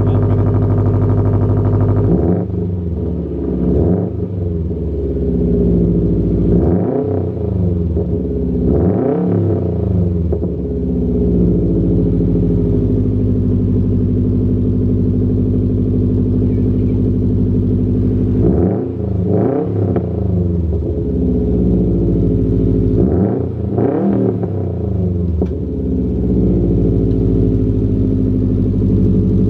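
Subaru WRX STI's turbocharged flat-four running through a newly installed AWE Track Edition exhaust, idling steadily and revved in quick blips in four spells, about two seconds in, around seven to ten seconds, around nineteen seconds and around twenty-four seconds.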